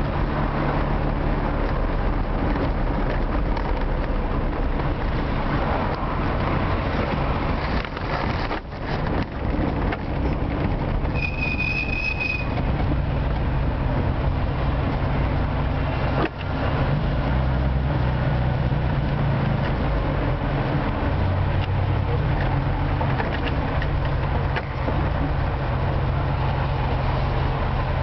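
An old Moskvich car's engine running as it drives, heard from inside the cabin. The steady engine hum shifts in pitch with speed and drops out briefly twice. A short high beep sounds for about a second, around eleven seconds in.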